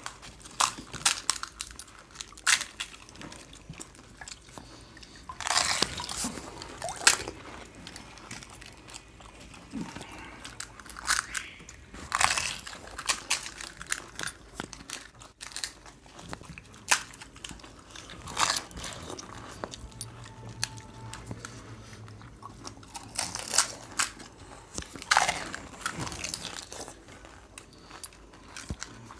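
People biting into and chewing crisp puchka (panipuri) shells, with irregular crunches.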